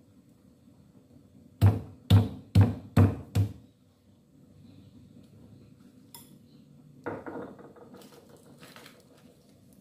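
Steel meat cleaver chopping tough cooked beef skin on a round wooden chopping block: five heavy chops, about two a second. About seven seconds in, a lighter knock and a scrape of the blade on the wood.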